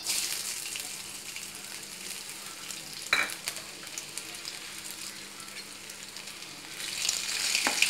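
Chopped ginger sizzling in hot ghee and oil in a kadai. The sizzle starts suddenly as the ginger goes in, stays steady with one short click about three seconds in, and grows louder near the end.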